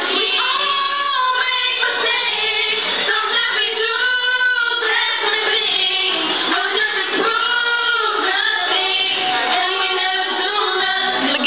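Several girls singing together into handheld microphones, the voices amplified through a hall's sound system, with notes held and sliding between phrases.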